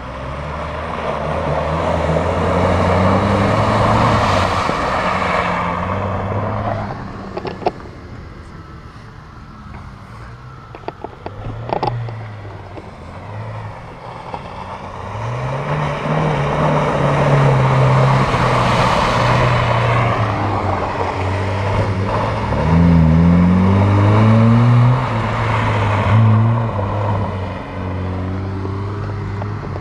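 An off-road 4x4's engine revving hard and easing off again and again as it drives through mud, with a loud rushing noise from the tyres and spray. It goes quieter for a few seconds in the middle, where a few sharp clicks are heard.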